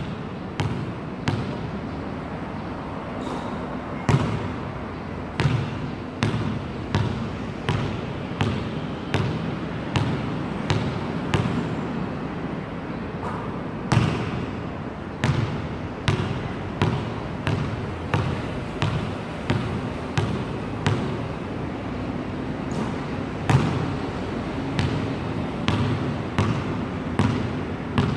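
A basketball dribbled on a hard court, bouncing in a steady rhythm of a bit under two bounces a second, with a few louder knocks, over steady background noise.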